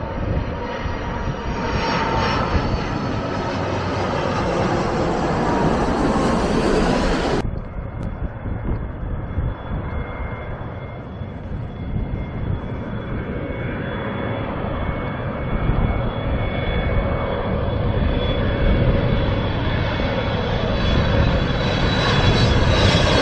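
Twin-engine jet airliners on final approach passing low overhead. The first jet's engine noise falls in pitch as it passes and cuts off sharply about seven seconds in. A second jet's engine whine then approaches and grows louder near the end.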